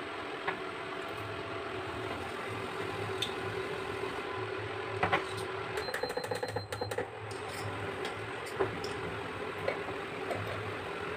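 Induction cooktop humming steadily under a steel pot, with a steel spoon clinking against the pot now and then. About six seconds in comes a quick run of taps and a brief high beep.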